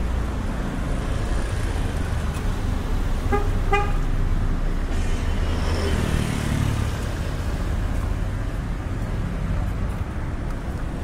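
Road traffic running past at street level, a steady low rumble of car engines and tyres, with two quick toots of a vehicle horn about three and a half seconds in.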